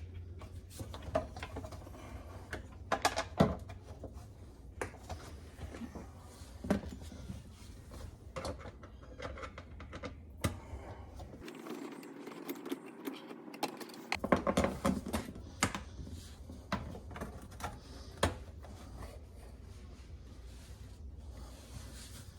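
Scattered clicks and knocks of plastic dishwasher parts being handled and fitted back into the tub, over a low steady hum that drops out for a few seconds near the middle.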